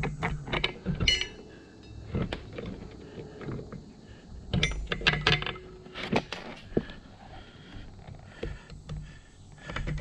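Scattered metal clinks and knocks as an electric drum winch is handled and shifted into place on its mounting bolts on a boat deck, a few with a brief metallic ring.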